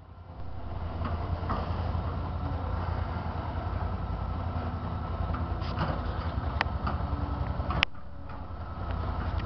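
Diesel engine of an amphibious excavator (marsh buggy) running with a steady low throb as the machine moves, its level rising in the first half second, with a few sharp metallic clicks and clanks near the end.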